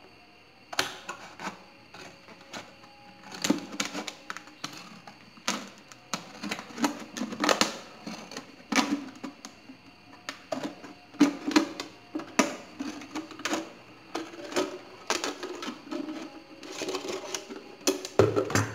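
Scissors cutting through a thin plastic drink bottle: a string of irregular crunching snips and crackles of the plastic, with the loudest crunches near the end.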